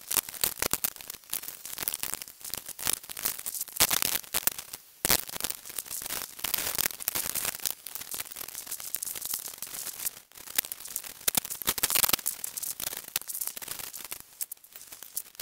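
Dense, irregular crackling and rattling, a rapid jumble of clicks with no voice.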